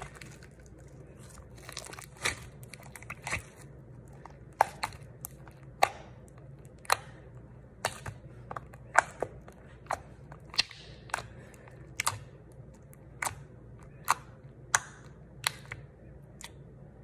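Homemade borax-and-glue slime squished and stretched by hand, giving irregular sharp pops and clicks about once or twice a second.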